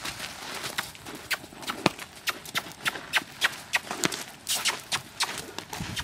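Hoofbeats of a young American Paint Horse gelding moving loose on dirt footing, an irregular run of sharp strikes several times a second.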